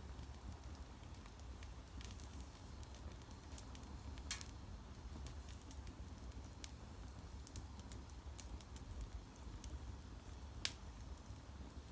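Bonfire crackling: scattered small pops and ticks from burning wood, with two louder pops, about four seconds in and near the end, over a low steady rumble.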